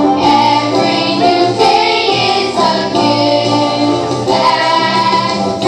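Children's choir singing, holding long notes.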